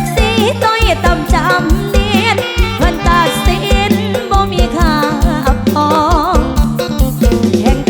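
Loud amplified Isan mor lam band music in an instrumental passage: a steady fast drum beat of about four strokes a second with bass, under a wavering lead melody.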